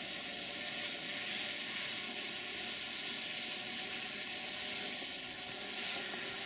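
Distant Electroputere LDE2100 (060-DA) diesel locomotive's Sulzer engine running steadily, with a thin, steady high whistle, the turbocharger whistle the locomotive is nicknamed for, heard from about a second in until near the end.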